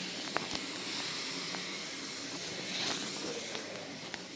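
Steady drone of a maize hammer mill running, with a few faint footstep clicks on dirt; the drone eases off a little near the end.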